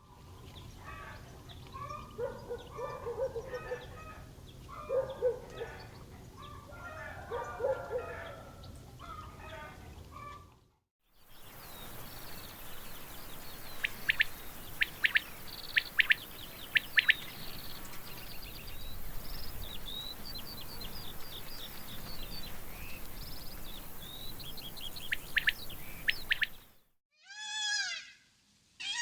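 Baby farm animals calling in several short clips joined by abrupt cuts: groups of repeated calls for the first ten seconds or so, then bird chirps and peeps for most of the rest, and a few kitten meows near the end.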